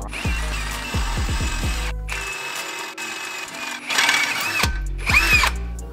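Background music with a deep bass beat, over a cordless drill boring through a steel truck frame rail, its drilling loudest in bursts about four and five seconds in.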